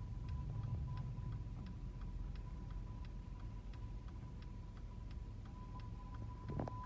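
Car turn-signal indicator ticking steadily, about three clicks a second, over the low rumble of the engine and road inside the cabin, with a faint steady high tone underneath.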